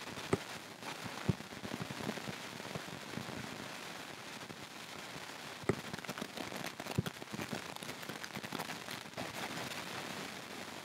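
Steady hiss with scattered sharp clicks and crackles, the clearest four spread out over the stretch.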